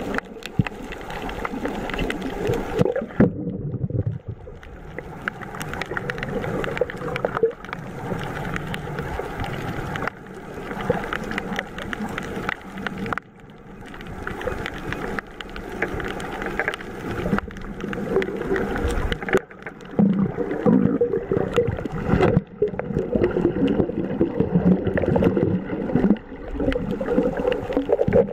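Muffled underwater sound picked up by a submerged camera: water gurgling and sloshing, with many small clicks and a low, wavering drone.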